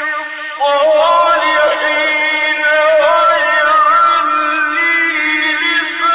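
A man reciting the Quran in Arabic in a slow, melodic chanted style (tajwid), holding long drawn-out notes. There is a short break about half a second in before the next phrase begins.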